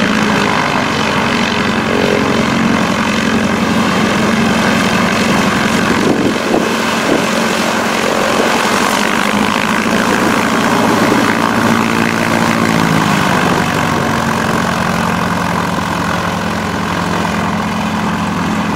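North American AT-6 Texan's nine-cylinder Pratt & Whitney R-1340 radial engine running steadily at low power with the propeller turning, as the plane taxis on grass. The engine note drops a little about two-thirds of the way through.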